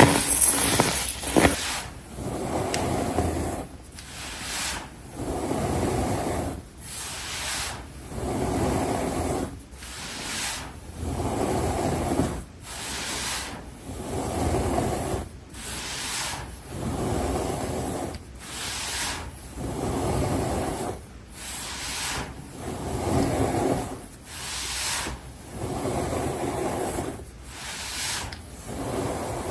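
Pressed baking soda blocks being crushed, a squeaky crunch about every two seconds.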